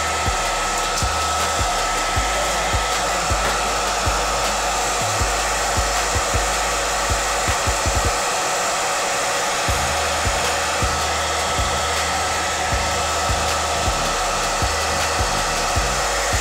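Handheld hair dryer blowing steadily at close range onto the lace hairline of a wig, drying and setting the holding spray just laid on the lace. A steady rush of air with a high whine, and a low rumble that cuts in and out.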